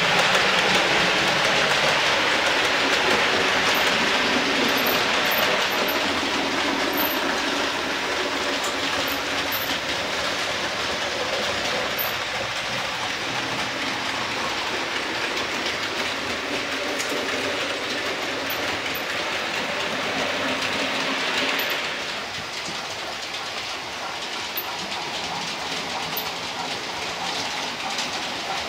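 Model railway trains running on the layout's track: a steady rolling clatter of small wheels on rail and electric motors, getting quieter near the end.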